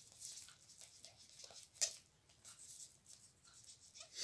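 Pen writing by hand: faint, light scratching strokes, with one sharper click a little under two seconds in.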